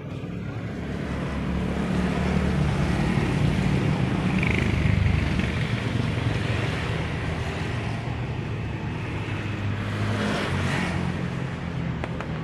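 A motor engine running steadily with a low hum, under a broad rushing hiss that swells over the first couple of seconds.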